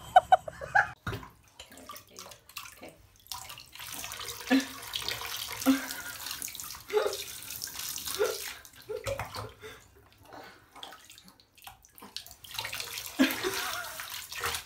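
Water running into a bathtub, a steady splashing hiss that eases off for a few seconds past the middle. A baby makes short coos and gasps now and then.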